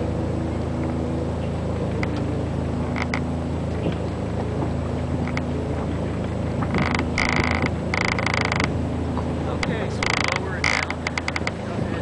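A boat's inboard engine running steadily with a low, even hum. Several louder, higher-pitched bursts break in over it in the second half.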